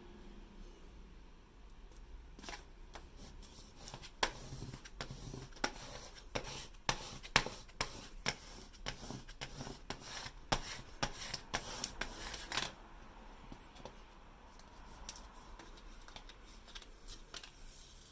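Hands working vinyl sticker sheet: a dense run of sharp, irregular clicks and crackles that starts a couple of seconds in and stops fairly abruptly about two-thirds of the way through, followed by quieter handling.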